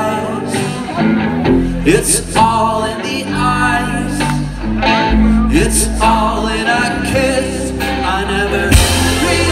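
A live rock band playing: a man singing the lead over electric guitars, keyboard and drums, with a heavy bass line coming in about a second and a half in.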